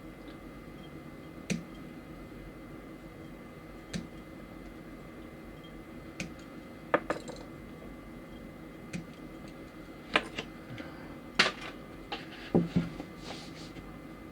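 Small hard plastic parts of a mini Gundam model kit clicking and tapping as they are handled and fitted together: scattered sharp clicks, sparse at first and coming more often and louder over the last few seconds, over a faint steady room hum.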